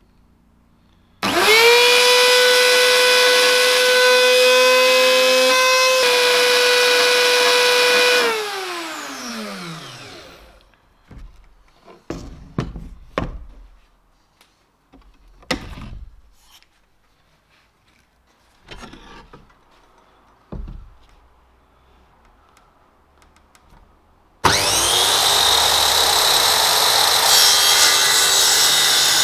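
A trim router starts about a second in and runs at a steady high whine for about seven seconds as it cuts plywood along a guide rail, then is switched off and winds down with falling pitch. A few knocks and clunks follow as the tool is handled, and about 24 seconds in a circular saw starts running loudly.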